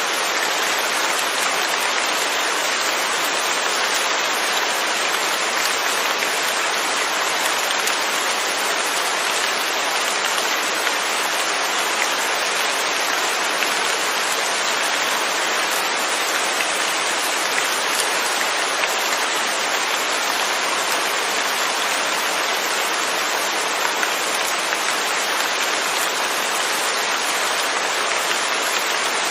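Steady rain falling, an even hiss with faint drop ticks and no thunder.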